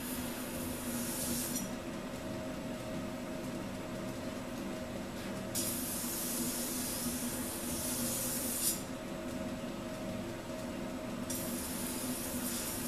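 Belt grinder running steadily, with a steel knife blade pressed against the abrasive belt at the contact wheel in three hissing grinding passes: one ending about a second and a half in, one in the middle lasting about three seconds, and one starting near the end. This is the grinding that takes heat-treat scale off the blade down to bare steel.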